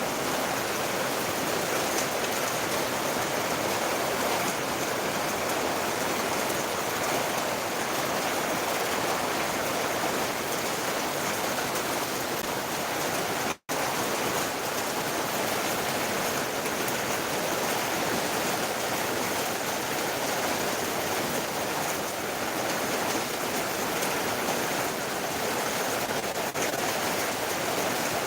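Heavy rain falling, a steady even hiss, which breaks off for an instant about halfway through.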